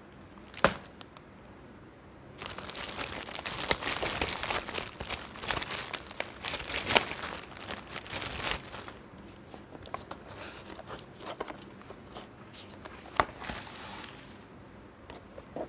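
Plastic courier mailer being torn and crumpled open by hand, with dense crinkling and crackling for about six seconds. Then come lighter handling noises and a few taps as a small cardboard box is turned over. A single sharp knock sounds about half a second in.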